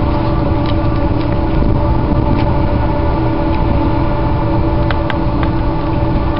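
Steady engine drone, an even hum with a low rumble beneath it, holding constant, with a few faint clicks.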